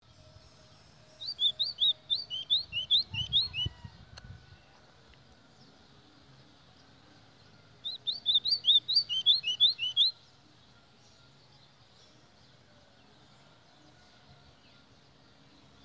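Golinha (white-throated seedeater) singing two bursts of song, about a second in and again about eight seconds in. Each burst is a fast run of short, clear whistled notes, about five a second, stepping down in pitch over two to three seconds.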